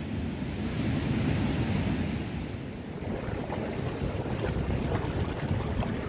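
Small waves washing up on a sandy beach, with wind buffeting the microphone in a low, steady rumble.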